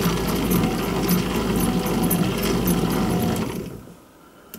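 Old lathe running, its gear train driving the cutting tool along a brass worm-gear blank in the last cutting pass. The machine sound is steady for about three and a half seconds, then dies away as the lathe stops.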